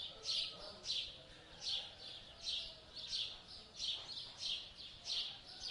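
A small bird chirping over and over, short high chirps about two a second, with fainter lower bird calls behind.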